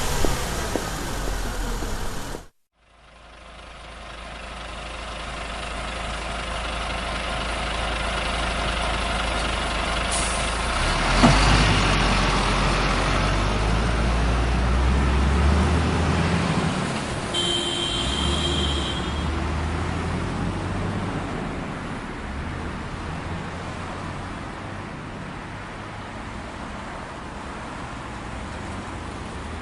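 Radio-controlled construction vehicles running: a steady motor rumble with a faint whine, a sharp knock about a third of the way in, and a brief steady tone a little past the middle.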